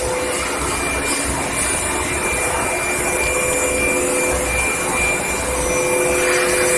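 Steady industrial machine noise from an electric furnace line heating carbon steel: an even hiss with a few steady hum tones, growing louder near the end.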